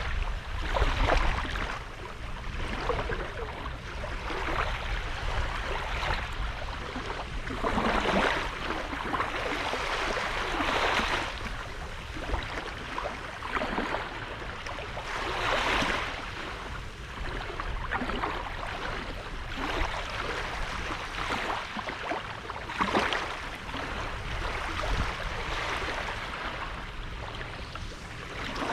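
Small sea waves washing onto a sandy beach, the surf hiss swelling and fading at irregular intervals of a few seconds, over a constant low rumble.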